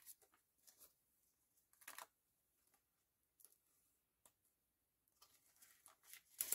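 Faint rustling and crinkling of clear plastic binder pouches and polymer banknotes being handled and flipped, in short scattered bursts with near silence between, the busiest stretch near the end.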